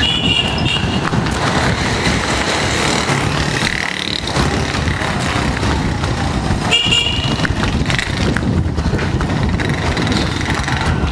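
A vehicle horn sounds twice in short blasts, near the start and about seven seconds in, over a constant heavy rumble of wind and handling noise on a camera carried at a run, with scattered footfalls.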